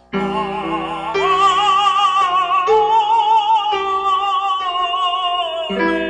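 A solo male singer sings a held, strongly wavering (vibrato) line of a Welsh hymn over sustained accompanying chords. The voice comes in loudly at the start and climbs to a higher held note about a second in. The chords underneath change every second or so.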